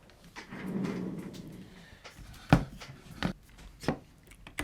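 Tripod parts being handled on a workbench: a soft rubbing, then several sharp knocks and clicks, the loudest about two and a half seconds in.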